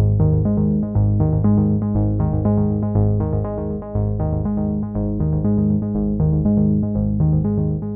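Background music: synthesizer and keyboard notes over a steady repeating bass pattern.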